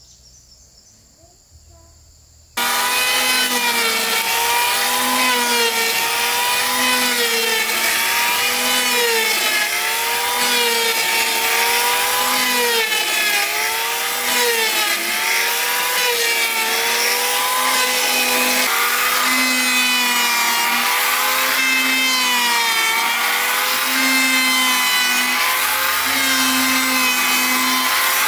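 Large wood-sawing machine cutting timber: a loud, steady whine whose pitch wavers up and down about once a second. It starts suddenly after a couple of seconds of near-quiet.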